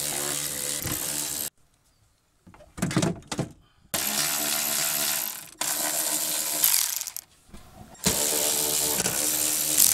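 Milwaukee M12 3/8-inch cordless ratchet running in four short bursts of steady motor whine, backing out and loosening the 8mm bolts that hold a power window regulator. A few short knocks come between the first and second runs.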